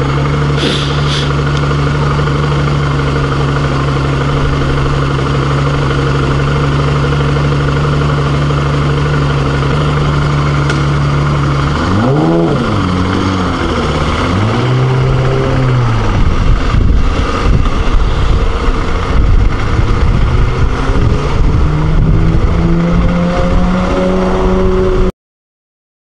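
Motorcycle engine, likely a BMW G650 Xcountry single, idling steadily in traffic, then revving up and down twice about halfway through. It then pulls away, its pitch climbing through the gears under heavy wind buffeting on the microphone, and the sound cuts off suddenly near the end.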